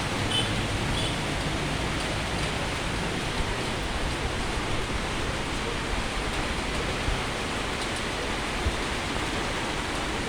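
Steady hiss of heavy rain falling, with no change in intensity.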